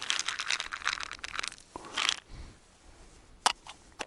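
Crinkling and crunching handling noise, dense for the first second or so with another burst about two seconds in, then a few sharp clicks near the end.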